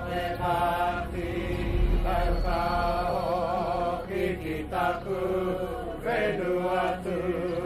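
Māori chanting by a group of men's voices, sung in long phrases of held, wavering notes.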